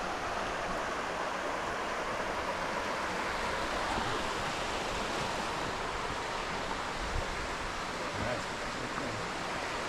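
Steady rush of water flowing through an open irrigation ditch.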